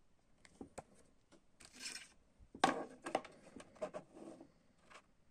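A paper CD booklet being handled and slid into a clear plastic jewel case: a short papery slide, then a run of small plastic clicks and knocks, loudest about two and a half seconds in.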